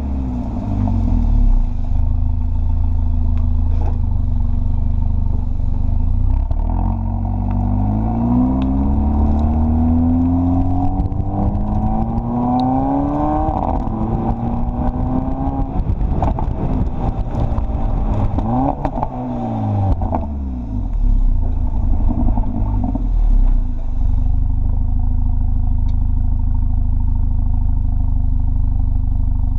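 Mercedes CLA45 AMG's turbocharged 2.0-litre four-cylinder engine and exhaust, running steadily at first. From about seven seconds in the engine revs up and back down a few times, with a crackle from the exhaust as the revs fall. For the last few seconds it settles back to a steady idle.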